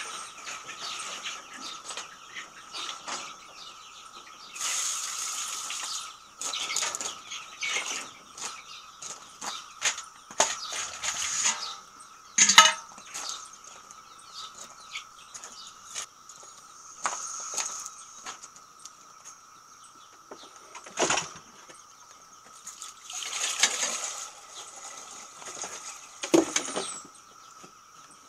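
Irregular rustling, scuffing and a few sharp knocks from a person moving about on gravel and handling a garden hose, over a steady faint hiss.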